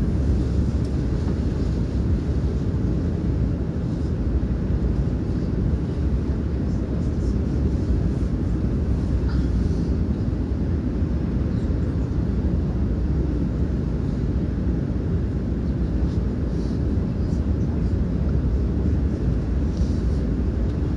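Steady low rumble of a moving train, heard from inside the passenger carriage.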